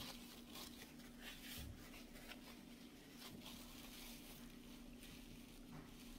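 Faint, irregular chewing of a large mouthful of pizza, over a steady low hum.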